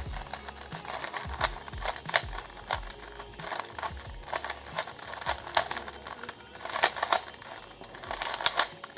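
Plastic 3x3 speed cube, a GAN 356 RS, being turned fast by hand: a quick, irregular run of clicks and clacks as its layers snap round.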